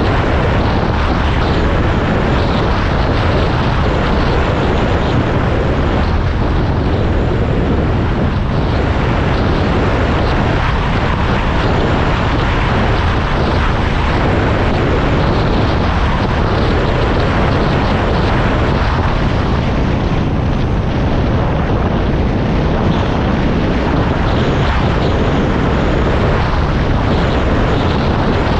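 Steady, loud running noise of a vehicle in motion, with no distinct engine note standing out, heaviest in the low end and constant throughout.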